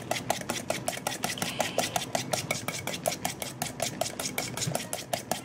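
Wire whisk beating a liquid egg batter in a stainless steel bowl, its wires clicking against the metal sides in a quick, even rhythm.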